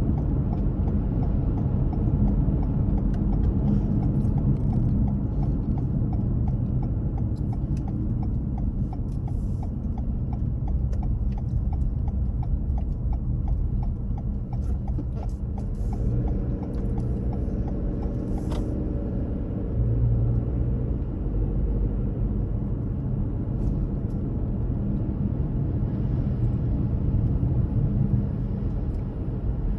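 Car on the move: a steady low rumble of engine and tyres on the road, with an even light ticking through roughly the first half.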